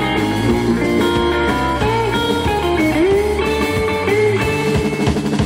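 Instrumental surf rock band playing live, led by a twangy electric guitar over bass and drums. Several lead guitar notes bend up and down in pitch in the middle.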